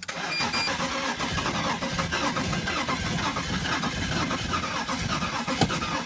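BMW engine cranking on its starter motor for about six seconds without firing, then cutting off suddenly: a no-start.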